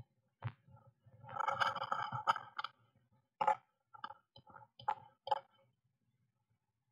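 A blue tit shuffling and fluttering in its nest cup inside a small wooden nest box. About a second in comes a dense rustle of the moss and wool lining, then a string of separate scratches and taps, and it falls quiet near the end.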